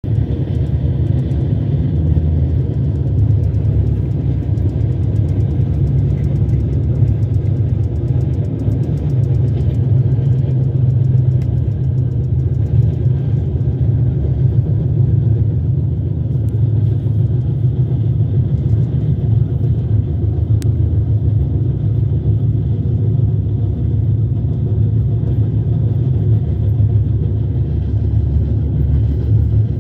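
Steady low rumble of a passenger train running at speed, heard from on board.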